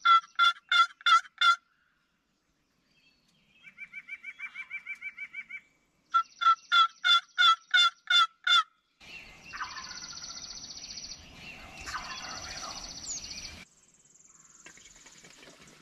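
Wild turkeys calling: a run of six sharp, evenly spaced yelps, a quieter, more distant rapid rattling gobble, then a second run of six yelps. Over the next few seconds there is rustling noise with a thin, high, steady tone above it.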